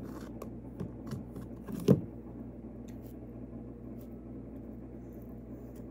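Light handling noises of a butter package and knife: a few faint clicks and taps, with one dull thump about two seconds in, over a steady low hum.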